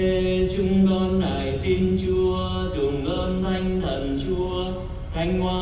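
Slow church singing in long held, chant-like notes that move from one pitch to the next in steps.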